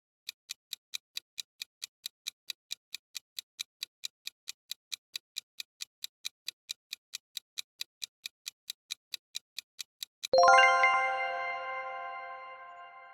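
Countdown-timer sound effect: fast, even clock-like ticks, about four a second, for about ten seconds, then a bright chime that rings and fades, marking time up.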